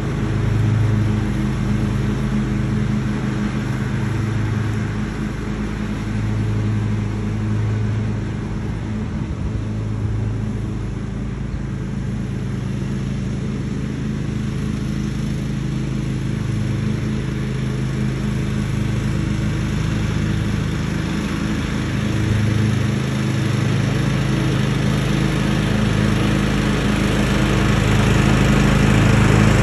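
John Deere X320 lawn tractor running steadily while mowing, its engine note even throughout and growing louder near the end as the mower comes back toward the microphone.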